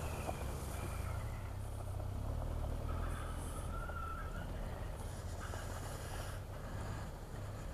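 Motorcycle engine running at low revs as the bike rides slowly through a shallow trail ford: a steady low rumble with a rushing noise over it.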